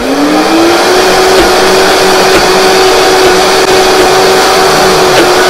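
Vitamix blender motor spinning up as its speed dial is turned toward high, rising in pitch and levelling off about half a second in. It then runs loud and steady, pureeing a thick chickpea mixture into hummus.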